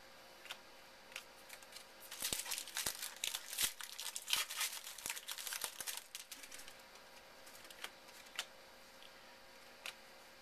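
A trading-card pack wrapper is torn open and crinkled for about four seconds, in a dense crackle. A few light clicks of cards being handled follow.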